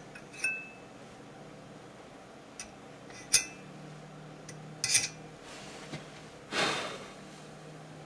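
Small metal clinks and taps of a long screw and fan parts being fiddled into place in a metal computer case: a ringing clink about half a second in, a sharper ringing click a little after three seconds, two quick taps around five seconds, and a brief scraping rub near the end.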